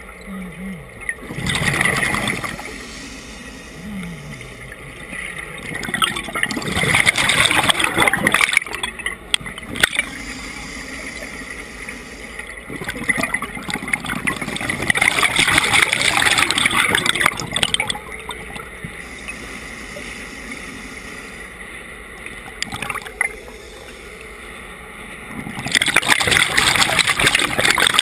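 A scuba diver breathing through a regulator, heard underwater: about four long bursts of exhaled bubbles gurgling out of the regulator, several seconds apart, with a quieter steady wash of water between breaths.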